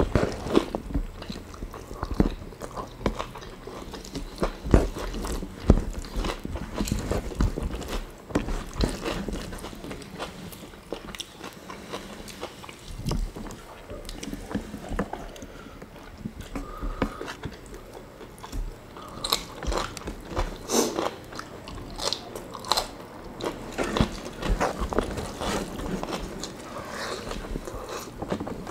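Two people chewing and crunching mouthfuls of rice with fried chicken, tempeh and tofu, eaten by hand, with many irregular crisp crackles and wet chewing clicks.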